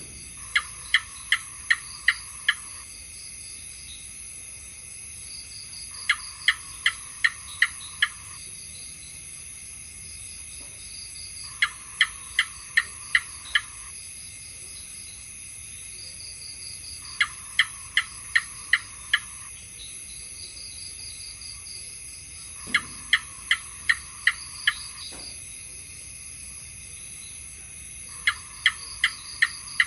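House gecko calling in its typical rapid series of sharp chirps, about six chirps to a bout, the bouts repeating six times at a steady interval of roughly five to six seconds.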